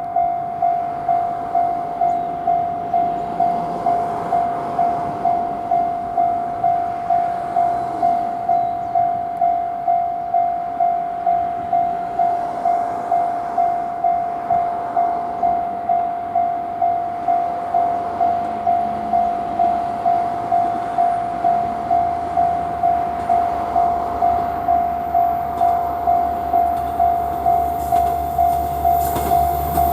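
Japanese level-crossing warning bell ringing in even, steady dings, a little under two a second. In the last several seconds the low rumble of the approaching KiHa 110-series diesel railcar builds underneath.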